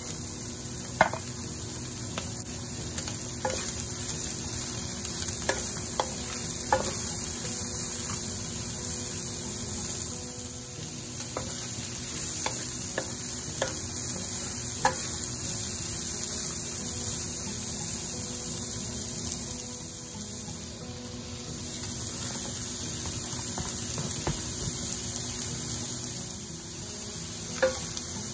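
Vegetables sizzling in a hot nonstick wok as a wooden spatula stirs and tosses them. Sharp taps and knocks of the spatula against the pan come every few seconds, loudest about a second in and near the end.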